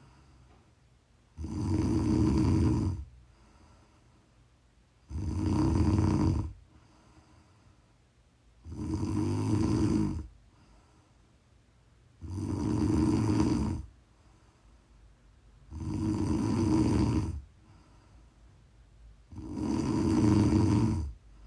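A woman snoring in her sleep: six long, rasping snores, each about a second and a half, coming about every three and a half seconds in a steady rhythm, with quiet pauses between them.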